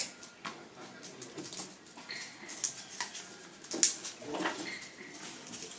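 Paper firecracker tubes clicking and rustling in the hands as they are gathered into a bundle, a run of small irregular taps with a sharper click about four seconds in.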